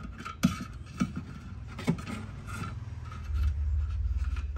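Hands rubbing and scraping over a floor monitor's woofer and cabinet, with a few sharp knocks in the first two seconds. A low hum grows louder about three seconds in.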